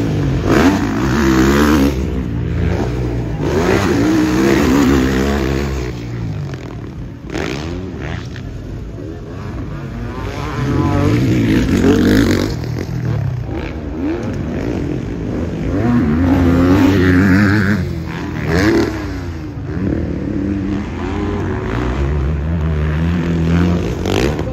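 Motocross bikes' single-cylinder engines revving hard and backing off in repeated surges, the pitch rising and falling as riders pass on the dirt track.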